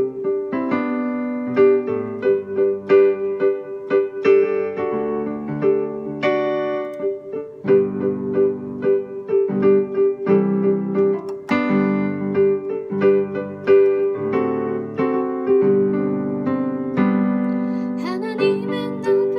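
Keyboard or piano playing a slow hymn: a steady flow of struck notes and sustained chords, with one middle note sounding again and again.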